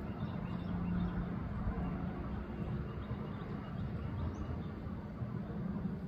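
A steady low mechanical hum with a constant drone, unchanging throughout.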